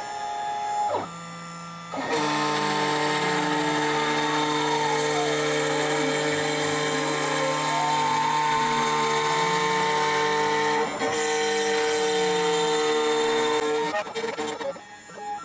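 CNC router spindle running while its bit carves wood, a steady whine of several tones with some pitches slowly rising and falling. It gets markedly louder about two seconds in, dips briefly near eleven seconds and breaks up near the end.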